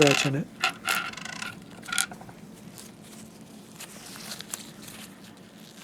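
Small metal parts of a slit lamp's spring and arm assembly being handled and fitted by hand: a few sharp clicks and scrapes in the first two seconds, then quieter fiddling noise.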